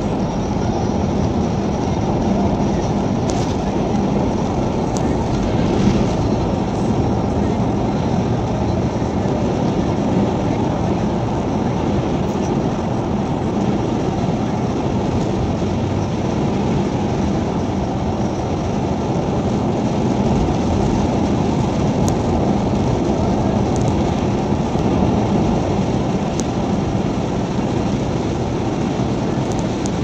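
Steady road noise inside a moving car at highway speed: an even rumble of tyres and engine with no breaks, and a few faint ticks over it.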